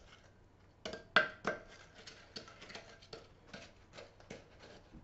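Wooden spoon stirring egg and brown sugar in a glass mixing bowl: irregular scrapes and light knocks of the spoon against the glass, the sharpest few about a second in.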